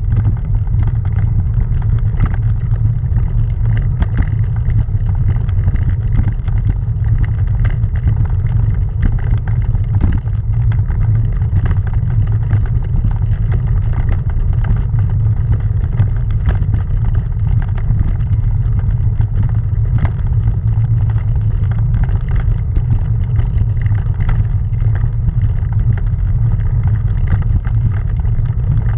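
Bicycle rolling up a granite-cobbled road: a steady low rumble from the tyres on the cobbles, with many small rattling clicks.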